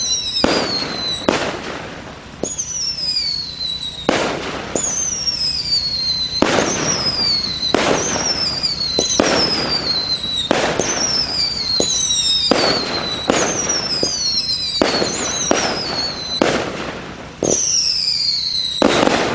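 200-gram Empire firework cake from Planet X Fireworks firing shot after shot: whistling tails that fall in pitch, each followed by the bang of a peony break, often overlapping, about one a second.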